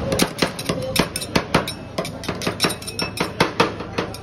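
Two metal spatulas chopping and scraping ice cream on a frozen steel ice-cream plate: rapid, uneven metal-on-metal clacks, several a second.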